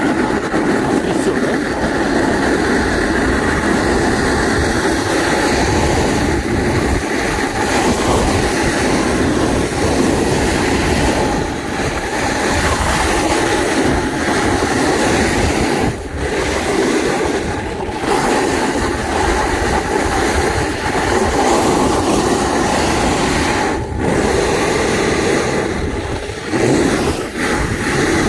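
Snowboard sliding and carving over hard, frozen groomed snow: a continuous loud scraping rattle from the board, with wind rushing over the microphone, dipping briefly a few times.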